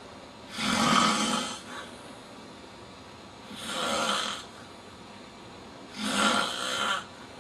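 A man snoring loudly: three long rasping snores, one about every two and a half seconds, with quiet breathing gaps between them.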